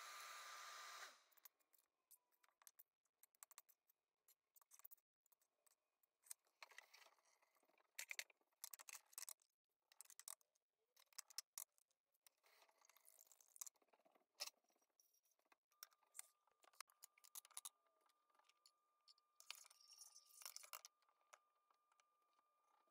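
Faint, scattered clicks and taps of kitchen prep work: a knife and glass bowls handled on a countertop and eggs cracked into a glass bowl. A steady hiss cuts off about a second in, and a faint thin steady tone comes in during the last several seconds.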